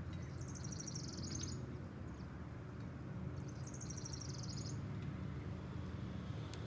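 A small bird singing two short, rapid trilled phrases about three seconds apart, over a steady low outdoor rumble.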